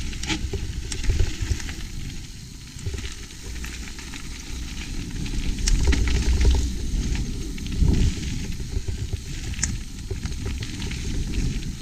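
Mountain bike rolling fast down a wet trail, the tyres crackling over the surface and the bike rattling with scattered sharp clicks, under heavy wind rumble on the action camera's microphone in gale-force wind.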